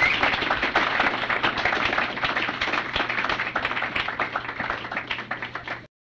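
An audience applauding, many hands clapping steadily, then cut off abruptly a little before the end.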